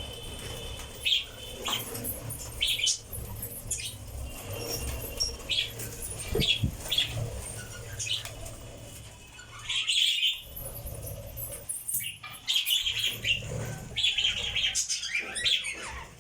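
Pet lovebirds chirping: many short, high calls in quick, irregular bursts, over a low steady hum.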